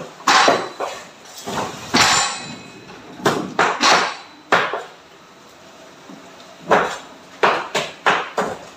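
A cleaver chopping frozen chicken: a dozen or so irregular heavy chops, some with a metallic ring, with a lull of a second or so around the middle.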